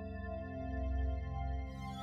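Soft ambient background music with sustained, held tones; a brighter, higher shimmer comes in near the end.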